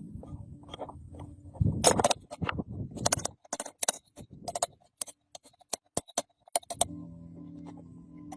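A run of sharp clicks and clinks, well over a dozen, irregularly spaced over about five seconds, from small hard objects knocking together. A low steady hum returns near the end.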